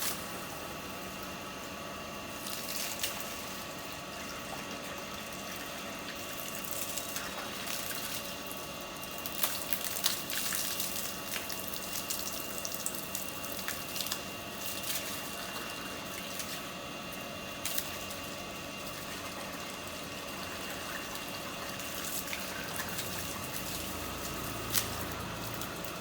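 Water running from a tap: a steady splashing hiss, broken now and then by short splashes and slaps as a small child plays in the stream.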